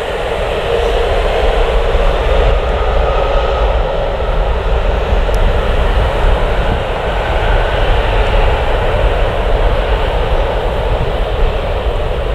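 Jet airliner engines running loud and steady: a broad rush of engine noise with a low rumble beneath and faint whining tones.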